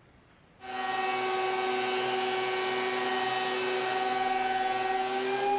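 Ridgid R4331 benchtop thickness planer switched on about half a second in, its motor and cutterhead coming up to speed at once and then running with a steady whine.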